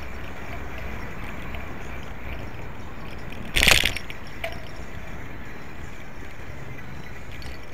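Steady rush of wind and tyre noise picked up by an action camera on a moving bicycle. A short, sharp clatter breaks in about three and a half seconds in, with a small click just after.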